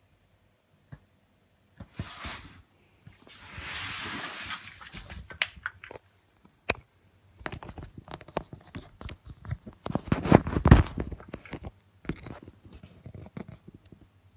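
The plastic valve of an inflatable vinyl air mattress being handled and its cap opened: vinyl rubbing and crinkling with many scattered clicks and knocks. There is a short rush of noise about two seconds in and a longer one around four seconds, and the loudest cluster of knocks comes about ten seconds in.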